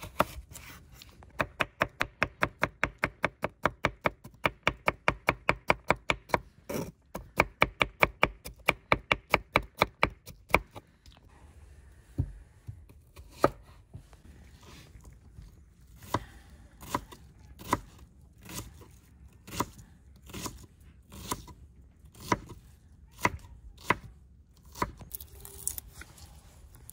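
Knife chopping on a cutting board: a fast, even run of strokes, about three a second, for the first ten seconds or so, then after a short pause slower single cuts about one a second.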